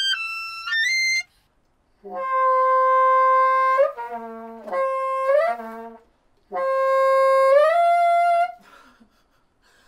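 Bassoon playing broken arpeggios in its upper register. A couple of short notes come first, then after a short pause two long held notes that each slur upward at the end, the last one leaping up to a high F.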